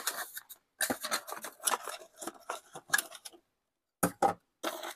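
A small cardboard box being opened and handled, and a boxed electronic unit lifted out: irregular scrapes, rustles and light taps of cardboard and packaging. The sound is broken by two short silent gaps near the end.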